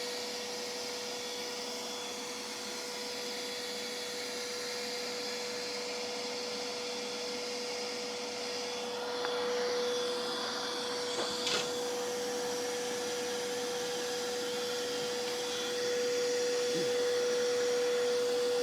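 Table saw motor running steadily with a constant whine. A couple of faint knocks come about eleven seconds in, and the sound gets a little louder near the end.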